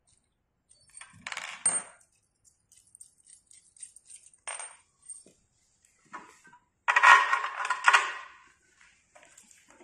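Steel bolts, washers and nuts clinking lightly together as they are handled, then a louder metal clatter and knocking about seven seconds in as the elliptical trainer's rear leg tube is fitted against the frame.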